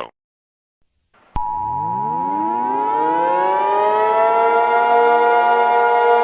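About a second of silence, then a loud emergency alert attention signal: a steady two-tone sound starts abruptly together with a civil defense siren winding up, its pitch rising for a few seconds and then holding steady.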